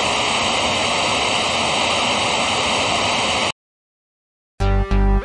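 Steady television static hiss that cuts off abruptly after about three and a half seconds. A second of silence follows, then music with deep bass notes begins near the end.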